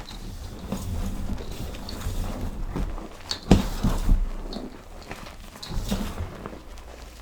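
Powder being crushed and squeezed close to the microphone, making irregular soft crunches and crackles, with the sharpest crunches about three and a half and four seconds in.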